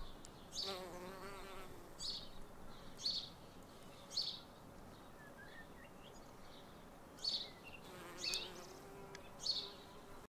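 Hairy-footed flower bee buzzing in flight: a wavering hum heard for about a second near the start and again near the end. Short high chirps from a bird come every second or so and are the loudest sounds.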